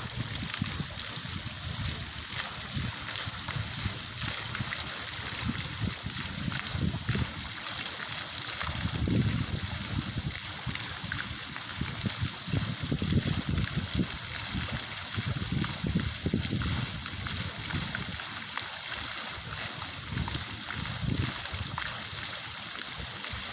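Water from a park fountain splashing and flowing in a steady rush, with an uneven low rumble that swells and fades underneath.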